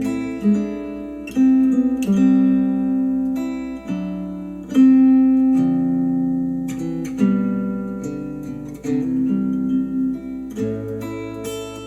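Acoustic guitar music played back through Adam Audio A5X powered studio monitors: slow picked chords, each ringing out and fading before the next.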